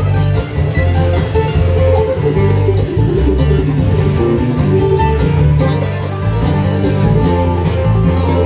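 Bluegrass band playing live in an instrumental passage: banjo, fiddle, mandolin, acoustic guitar and electric bass together at a steady level.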